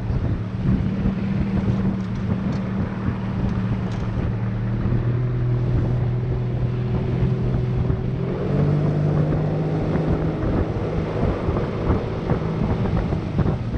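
25 hp Yamaha outboard motor running steadily as the boat moves across the water, with wind rushing over the microphone. The engine note rises slightly about eight and a half seconds in.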